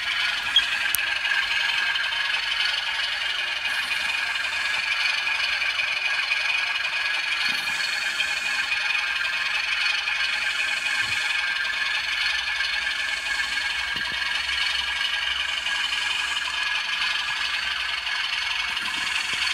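Model diesel locomotives running on a model railway layout: a steady whirr with rattle from the motors and wheels on the track, with a sharp click about half a second in.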